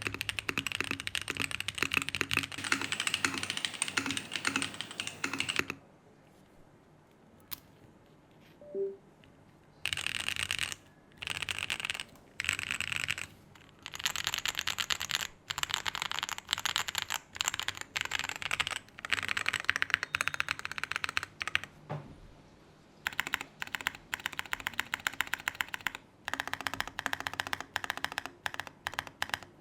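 Typing on a Mode Eighty mechanical keyboard with lubed Holy Panda tactile switches on an aluminium plate: fast runs of keystrokes. A pause of about four seconds comes about six seconds in, and a few shorter breaks come later.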